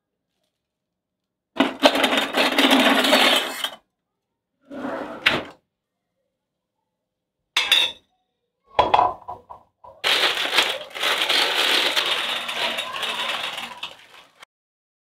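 Plastic bags crinkling and rustling in several bursts as they are handled, the longest near the end, with a few short sharp clinks around the middle.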